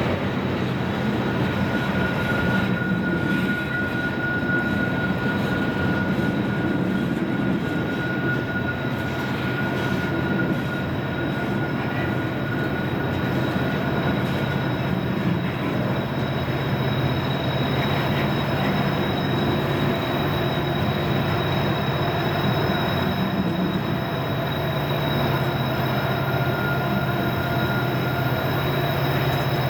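Loaded coal train rolling slowly on a curve: a continuous rumble of cars with a steady low drone, and steel wheel flanges squealing against the rail in thin high tones that fade out in the middle and come back near the end.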